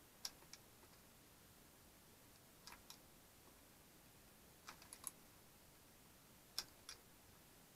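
Faint, scattered short clicks, some in pairs, as cable connectors are worked loose inside a disassembled LCD monitor, over near silence.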